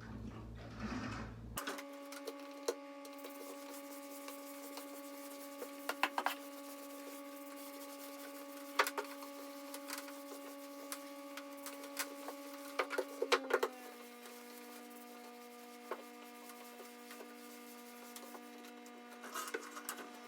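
Vacuum cleaner motor running with a steady whine that starts suddenly. Its pitch drops slightly about two-thirds of the way through, with scattered clicks and rattles over it.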